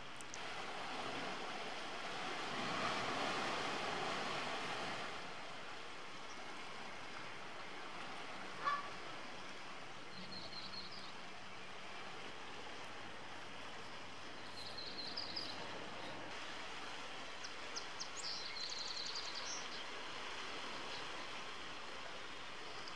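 Short runs of high, thin peeping from Canada goose goslings, coming in three small bursts in the second half, over a steady outdoor hiss. The hiss swells for the first few seconds, and there is one sharp knock about nine seconds in.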